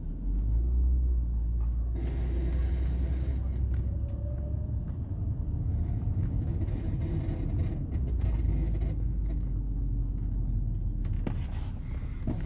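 BMW 325ci straight-six running with a steady low rumble, with a faint wavering whine and scattered light knocks: the noise the owner puts down to the power steering rack.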